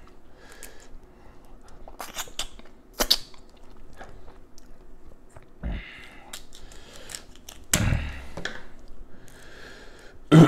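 Close-up chewing and wet smacking while eating Dungeness crab, with scattered sharp crunches and cracks of shell; the loudest comes about three seconds in, with others near six and eight seconds.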